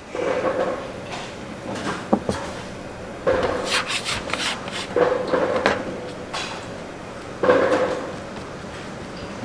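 Rubbing and scraping strokes on a wooden work surface, four of them each about a second long, with a few sharp knocks between them, as when dough is handled on a board.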